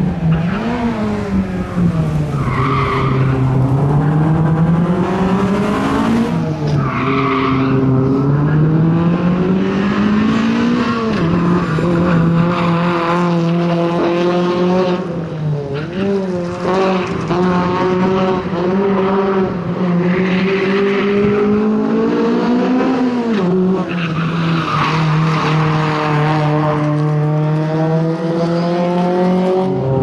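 Honda Civic's engine worked hard around a tight autocross course, its pitch climbing under throttle and dropping back at lifts and gear changes, over and over. Tyres squeal in several of the turns.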